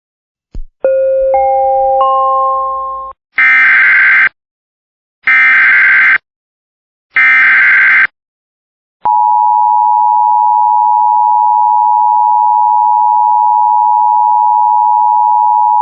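Emergency Alert System signal. A click is followed by a three-note rising chime that builds into a held chord, then three roughly one-second bursts of the shrill digital SAME header data. After that comes a long, steady attention tone that sounds for about eight seconds.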